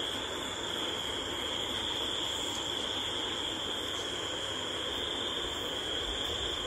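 Night insects, such as crickets, keeping up a steady, unbroken high-pitched trill over a faint background hiss.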